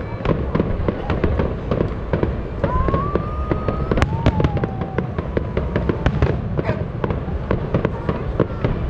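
Fireworks display: rapid, dense bangs and crackling over a low rumble. A whistle glides up about three seconds in, and a sharp crack near four seconds is followed by a falling whistle.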